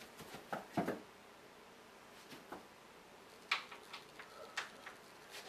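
Scattered short knocks and thumps of a person moving about a carpeted room, about half a dozen, with the sharpest ones near the start and around three and a half seconds in.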